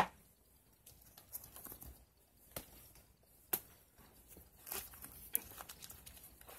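Books being handled and stacked: scattered light knocks and rustles, the loudest a sharp knock right at the start.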